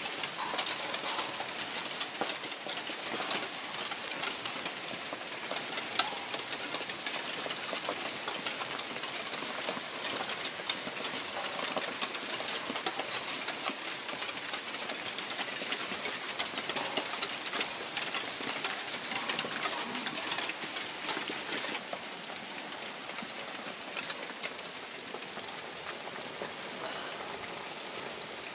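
Hailstorm: hailstones falling hard on open ground, a dense, steady clatter of many small impacts. It eases a little over the last several seconds.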